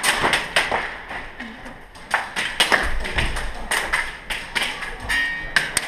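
Airsoft guns firing in close quarters: an irregular string of sharp snaps and clacks, several a second, with a dull thud about three seconds in.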